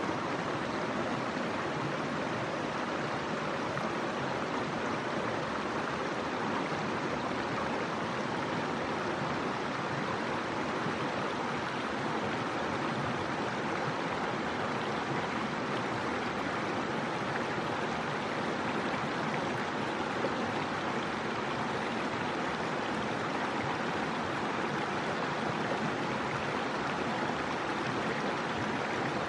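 Steady rush of a stream flowing over rocks.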